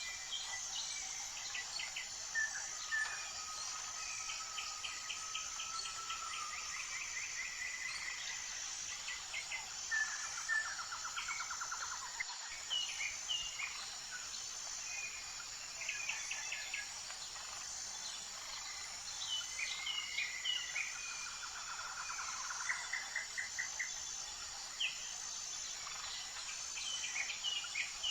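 Several birds singing and calling, with quick trills, short chirps and whistles, over a steady, evenly pulsing high-pitched insect chorus.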